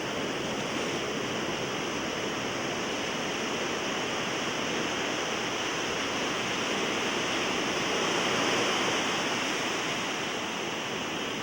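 Rough ocean surf, a steady rush of breaking and washing waves that swells to its loudest about eight seconds in.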